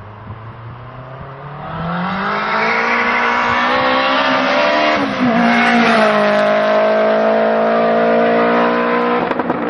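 Sports hatchback engine, either a Focus ST or RS five-cylinder or a Civic Type R EP3's K20 four-cylinder. Its revs climb over a few seconds and hold high. Near the end the revs fall with a few sharp crackles.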